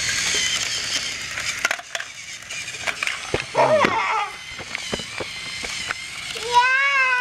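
Hard plastic toy train track pieces clicking and clattering as they are handled. A high voice makes a short wordless sound a few seconds in and a longer rising-then-falling 'oooh' near the end.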